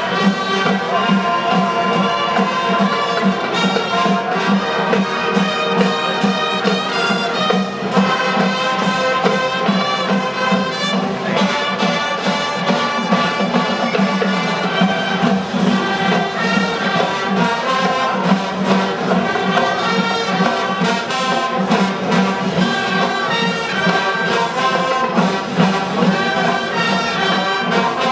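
Marching band playing a tune, led by brass with sousaphones on the low part; the music is loud and runs without a break.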